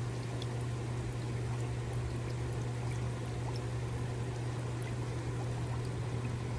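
Hot tub with its jets running: steady churning, bubbling water over a constant low pump hum.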